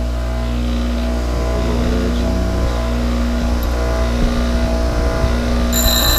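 Harbor Freight bench grinder running at speed with a steady hum while a lathe tool bit is sharpened on its wheel. Near the end, a high-pitched ringing tone joins the hum as the bit is pressed to the wheel.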